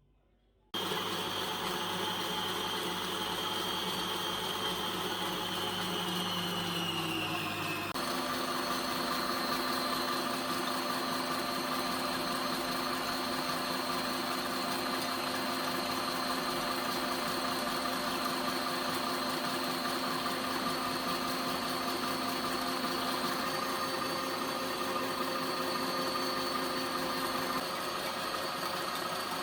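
Electric kitchen appliance motor running steadily at a high speed, starting abruptly about a second in. Its pitch sags and then shifts to a new steady tone about eight seconds in.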